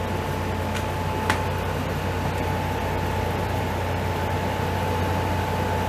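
Steady mechanical droning with a low hum and a faint steady high tone, broken once by a single sharp click about a second in.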